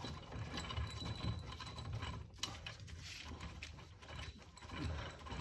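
Irregular metal clicks and clinks of tools and an axle puller's parts being handled and adjusted, with one sharper click a little past two seconds in.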